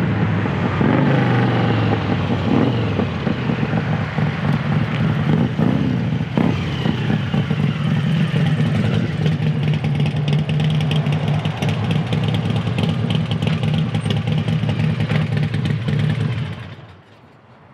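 Carbureted 1999 Harley-Davidson Electra Glide's V-twin engine running at low speed. Its pitch rises and falls a few times in the first few seconds as the bike slows, then it settles to a steady idle and is shut off shortly before the end.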